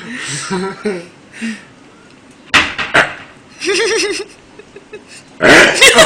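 A person burps on request: a short, wavering belch a little past the middle. A loud, rough noise comes near the end, with voices around it.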